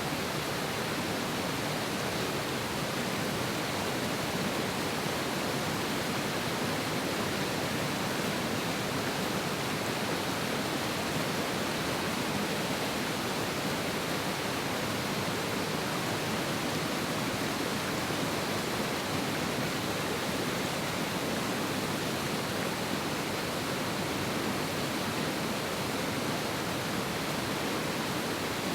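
River water rushing down from the mountains with force: a steady, dense rush of fast-flowing water with no let-up.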